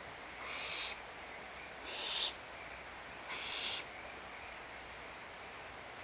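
Barn owls giving harsh hissing screech calls, three times, each about half a second long, swelling and then cutting off abruptly. These are the hissing calls barn owls make when begging for food at feeding time.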